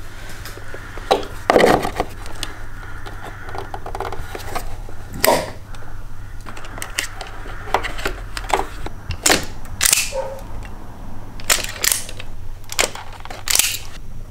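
Irregular sharp clicks and snaps of hand work on a car's plastic fuse box and wiring loom, with the clicks of a wire cutting and crimping tool.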